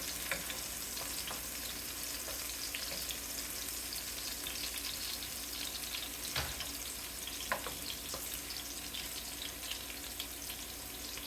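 Chopped green onions sizzling steadily in hot olive oil in a pan on medium-high heat, with a few light clicks about six and seven and a half seconds in.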